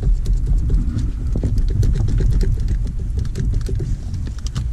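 Scattered light clicks and knocks of a loosened battery terminal clamp being twisted and worked off the post of a Chevy Volt's 12-volt battery, over a steady low rumble.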